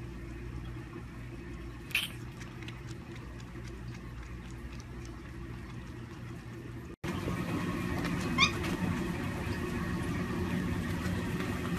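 Two short high monkey squeaks over a steady low hum: one rises quickly about two seconds in, and one steps up in pitch about eight and a half seconds in. After a cut about seven seconds in, the background becomes a louder low rumble of a car interior.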